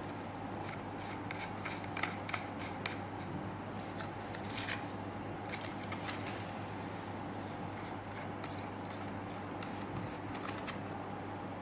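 Light clicks and short scrapes of small metal and plastic parts being handled, as a metal atomizer is screwed onto the threaded atomizer port of a phone-case vape, over a steady low hum.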